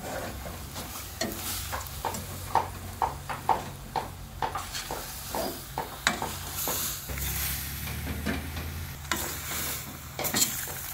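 A metal ladle scraping and knocking irregularly against a stainless-steel pot as chunks of raw pork are stirred into curry paste, with the meat sizzling in the hot pot.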